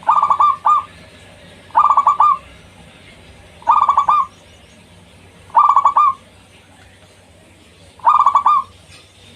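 Zebra dove (perkutut) cooing: five loud phrases about two seconds apart, each a quick run of notes that ends in a longer note.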